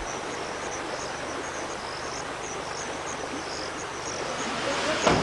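Night insects, crickets or similar, chirping: small high chirps repeating over a steady hiss. A single short knock near the end.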